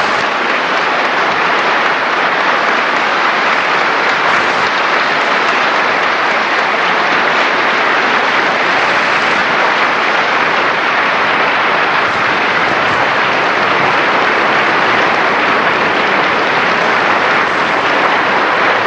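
Large audience applauding, a dense, loud, unbroken clapping that holds at one steady level.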